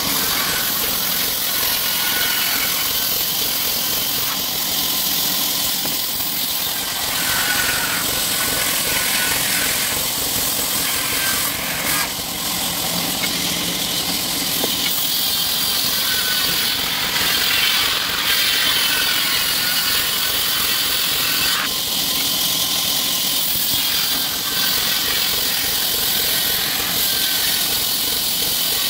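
Vertical band saw running steadily and ripping a squared timber baulk into boards, a continuous loud hiss of the blade through the wood over the hum of the machine.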